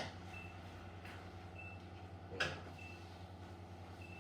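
A faint, short, high electronic beep repeating about every second and a quarter over a steady low hum, with one light knock about two and a half seconds in.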